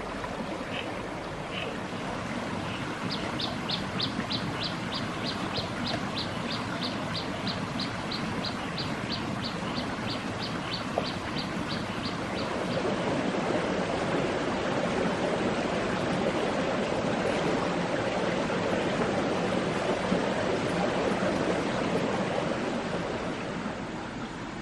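Rocky forest stream rushing over stones, a steady noise of running water that grows louder and fuller about halfway through. In the first half a rapid series of short, high chirps repeats nearly three times a second, then stops.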